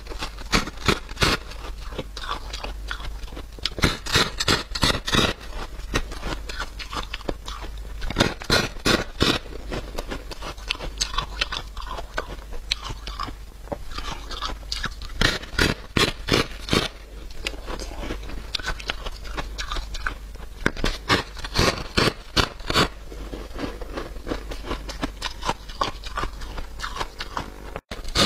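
Close-up crunching bites and chewing of a thick, porous disc of freezer frost. The crunches come in quick clusters of sharp strokes, with short pauses between bites.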